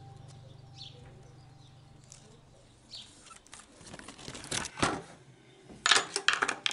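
A low hum fading out, then rustling with a run of sharp clicks and knocks, loudest near the end.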